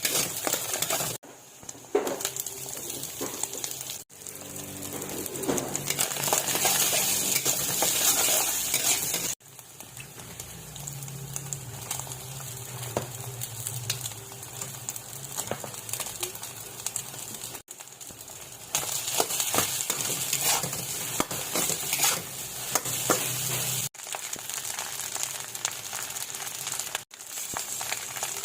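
Fried rice sizzling in a pan while being stirred, with frequent scraping strokes over a steady hiss. The sound cuts abruptly several times from one short clip of frying to the next.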